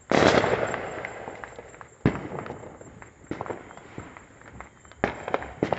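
Fireworks going off around the houses. A loud bang right at the start rolls on in a long fading echo. A sharp bang follows about two seconds in, then a few smaller pops, and three quick bangs near the end, with faint distant crackling between them.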